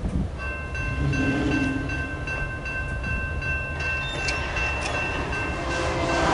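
Railroad grade-crossing warning bell starting to ring about half a second in, a steady series of high metallic dings: the crossing activating for an approaching train. The level swells near the end as the gate arms begin to lower.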